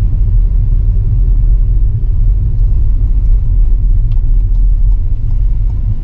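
Steady low rumble of a car driving slowly, heard from inside the cabin: engine and tyre noise on the street.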